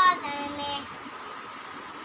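A young child singing a Malayalam song: a sung phrase ending in a held note that stops under a second in, leaving a steady faint background hum.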